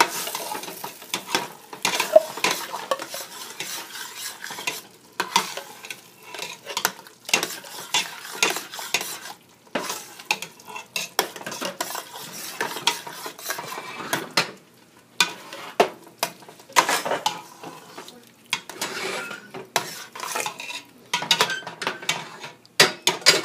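A metal spoon stirring a thick mix of ground pork and canned cream soups in a stainless steel pot, scraping and clinking against the pot. The scrapes come in irregular runs with short pauses every few seconds.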